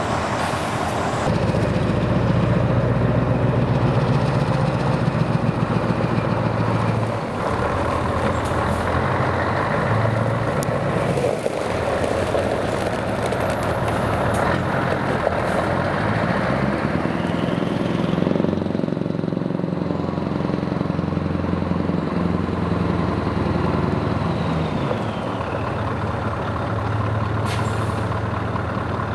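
Scania 143H's V8 diesel engine running as the truck drives round on gravel, its pitch rising and falling with the throttle. There are a few short sharp noises, the clearest near the end.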